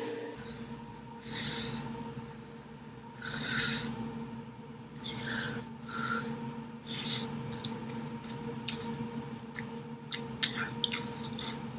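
Mouth and eating noises from a person eating spicy instant noodles: several short, noisy slurps and sniffs, then a quick run of small clicks near the end, over a steady low hum.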